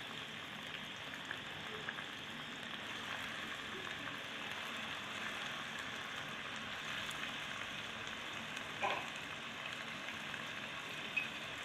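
Raw chicken pieces sizzling in hot oil with fried ginger-garlic paste in a karahi: a steady sizzle with light pops, and a short louder sound about nine seconds in.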